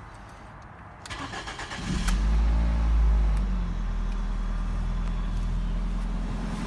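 Ford Focus II engine being started: the starter cranks for about a second, the engine catches with a brief flare of revs, then settles to a steady idle. It runs normally for now, without the unpleasant noise that comes after about a minute of running.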